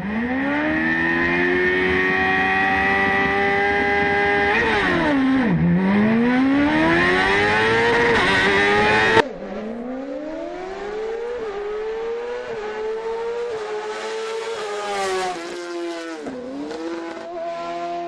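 BMW S1000RR inline-four motorcycle engine in a Fiat 500 hillclimb prototype, held at high revs on the start line, then dipping sharply as the car launches and screaming back up. About nine seconds in the sound cuts to the same car heard from the roadside, its revs climbing in steps through quick upshifts, with a brief lift and re-rev near the end.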